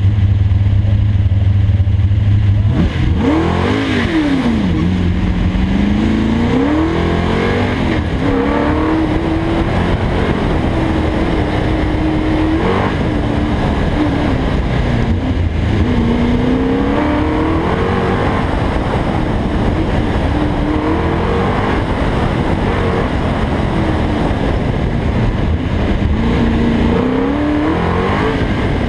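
Ford Mustang engine, heard from the hood, holding steady for the first couple of seconds and then launching. It then revs up and down again and again as the car accelerates and brakes through an autocross course, with wind and road noise underneath.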